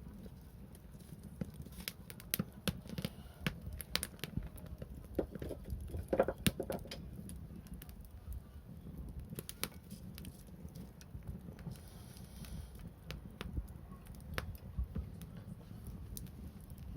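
Wood fire crackling, with scattered sharp pops and snaps over a low steady rumble; a short pitched squeal about six seconds in.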